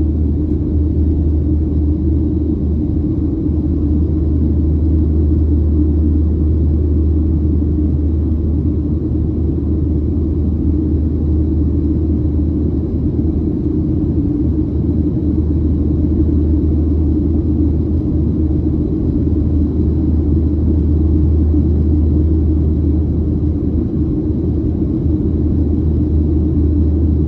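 Steady low rumble of a Boeing 737-700's CFM56-7B jet engines and rushing air, heard inside the passenger cabin in flight.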